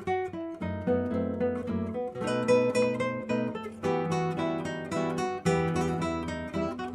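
Acoustic guitar music, plucked and strummed chords in a steady rhythm.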